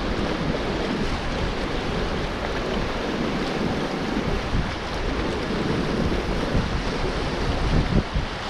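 Steady rush of a fast river's rapids under a raft, with wind buffeting the microphone.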